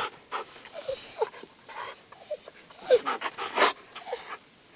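Husky sled dogs whining and yipping in short, high cries while the team stands stopped, eager to run on. The loudest cry comes about three seconds in, with scattered scuffs and clicks between the cries.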